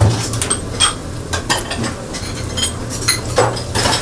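Metal utensils and dishes clinking and clattering in a series of quick knocks, some ringing briefly, over a steady low hum.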